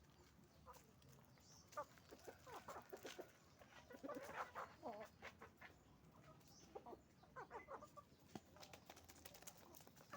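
A flock of chickens clucking, with short calls overlapping at irregular intervals and a few sharp clicks among them.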